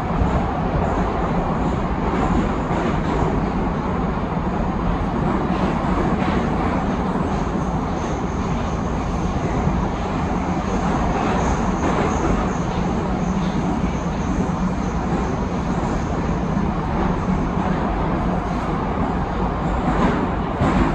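Steady running noise of a Saint Petersburg metro train, heard from inside the moving carriage: a loud, even rumble and rush with a faint high whine running through it.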